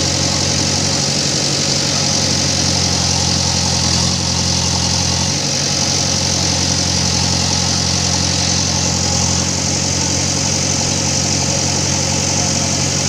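JCB backhoe loader's diesel engine running steadily with no revving.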